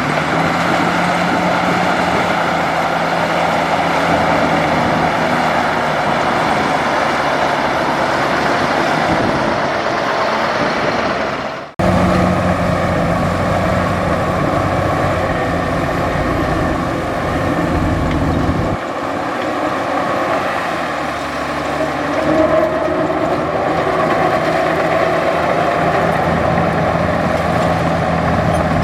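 Heavy diesel bulldozer engine running under load as it works, a steady loud drone with a dense mechanical clatter, breaking off for an instant about twelve seconds in and shifting pitch a little later on.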